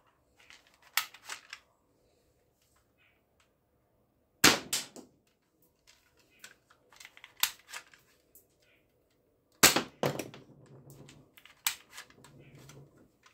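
Spring-powered plastic toy pistol being cocked and fired: a string of sharp plastic snaps and clacks, several of them in quick pairs, the loudest pair about three quarters of the way through, with softer clicks and rattles of handling in between.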